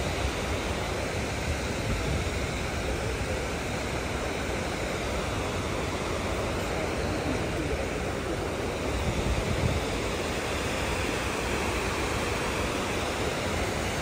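Steady rush of the 9/11 Memorial reflecting pool's waterfall, water pouring down the pool's walls into the basin.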